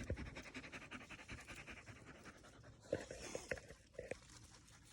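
A dog panting rapidly and steadily, faint, followed by a few light clicks or knocks in the last couple of seconds.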